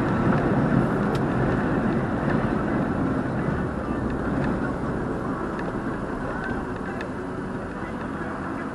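Steady road and engine noise inside a moving car, as picked up by a dashcam microphone, getting slowly quieter.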